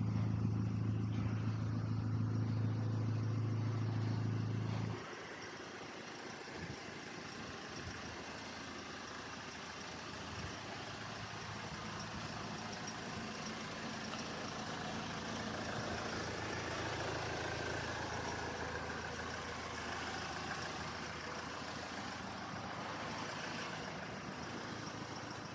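Honda Accord i-CTDi four-cylinder diesel idling steadily through a straight-through 2¼-inch exhaust with the catalytic converter deleted. It is switched off about five seconds in, and after that only faint outdoor background noise remains.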